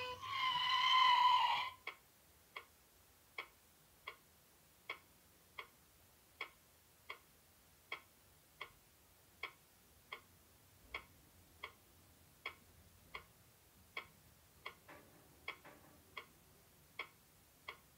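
Nissin Cup Noodle Robo Timer toy ticking steadily as it counts down the three-minute noodle wait, about three ticks every two seconds. A brief loud sound from the toy comes first, as its dance music ends.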